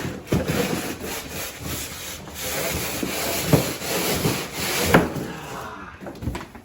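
Cardboard and packing material scraping and rustling as contents are dragged out of a large shipping box, with a few sharp knocks.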